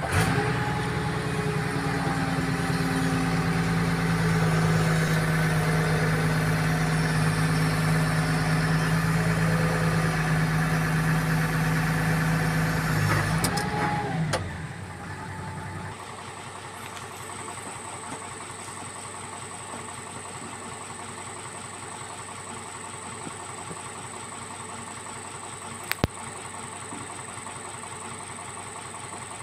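Hitachi excavator's diesel engine running steadily, then shut off about halfway through and winding down, leaving a much quieter steady background with a faint high tone. A single sharp click comes later.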